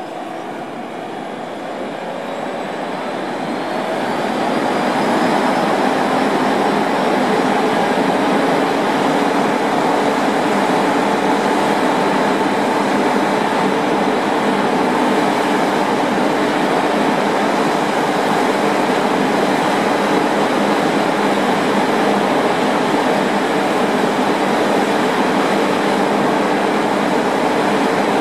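Matterhorn Gotthard Bahn metre-gauge electric train running close by. It grows louder over the first few seconds, then holds a steady mechanical hum with several held tones, and a faint rising whine near the start.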